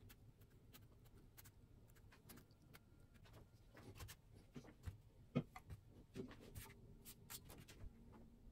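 Near silence: quiet room tone with faint scattered small clicks and taps, one a little louder a bit past five seconds in.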